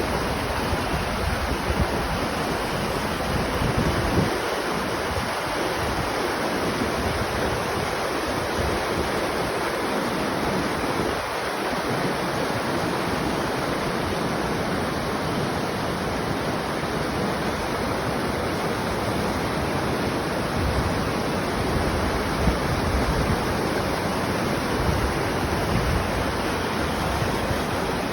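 Steady rush of running water, unbroken and even throughout.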